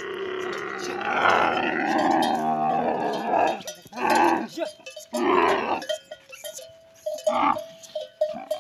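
Young dromedary camel bellowing in protest as it is held and its legs are roped: a long gurgling groan, then several short loud calls about a second apart.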